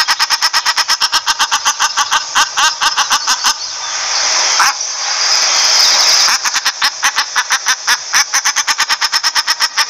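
Common shelduck calling: a fast, even series of short repeated notes, about eight a second. It breaks off about a third of the way in, leaving a steady hiss, then starts again after a couple of seconds.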